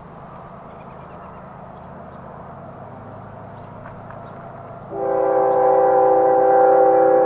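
CSX freight locomotive running toward the listener with a steady low rumble. About five seconds in it sounds its horn in one loud, long blast, a chord of several notes held steady.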